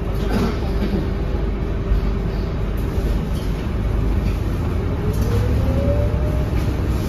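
Scania K230UB bus's diesel engine running, heard from inside the cabin as a steady low rumble with a hum. About four seconds in, a whine rises in pitch as the bus pulls away from the stop.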